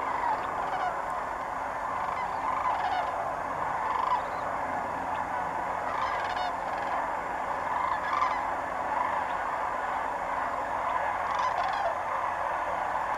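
A large flock of sandhill cranes calling in flight: a dense, continuous chorus of many overlapping calls, with single louder calls standing out now and then.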